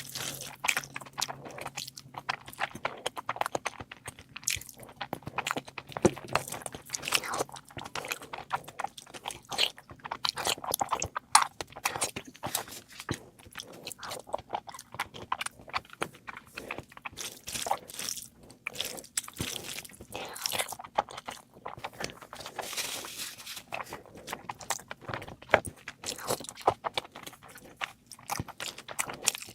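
Close-miked eating of meat curry: biting and chewing with many quick, irregular crunching clicks.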